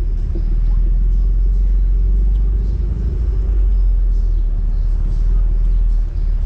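Steady low rumble of wind and road noise on a roof-mounted microphone as the vehicle rides slowly along a street.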